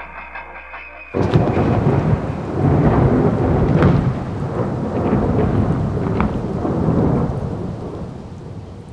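Thunderstorm: thunder rumbling in slow swells over heavy rain, starting suddenly about a second in as the guitar music ends, and fading toward the end.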